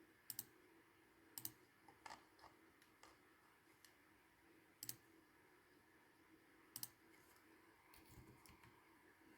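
Computer mouse clicking: half a dozen sharp clicks spread irregularly, some in quick pairs, with a few fainter clicks between, over faint room hiss.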